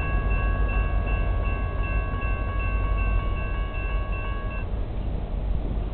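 Railroad crossing warning bell ringing steadily over a low rumble, then cutting off abruptly a little over four and a half seconds in, as the crossing clears after the train has passed.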